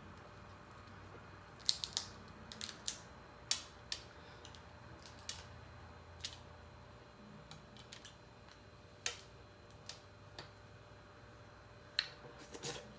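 Dungeness crab shell being cracked and picked apart by hand: an irregular scatter of sharp cracks and clicks, with the loudest clusters about two seconds in and again near nine and twelve seconds.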